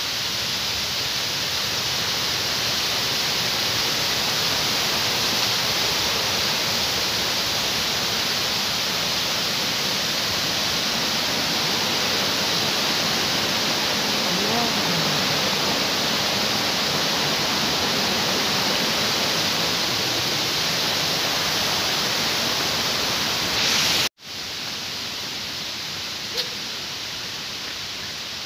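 Small forest waterfall cascading over rocks into a stream: a loud, steady rush of water. It cuts off suddenly near the end, leaving a quieter steady hiss.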